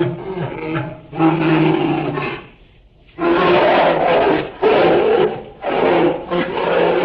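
A large wild animal roaring in a series of loud calls, with a short pause about two and a half seconds in.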